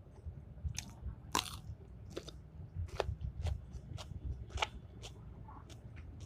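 A person chewing and biting into food close to the microphone, with a string of short crunchy clicks, the loudest about a second and a half in and again near the two-thirds mark; the food is the homemade chicken satay she has said she will eat.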